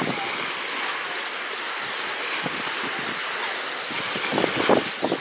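Sea waves breaking and washing up onto the beach in a steady rush, with a louder surge near the end.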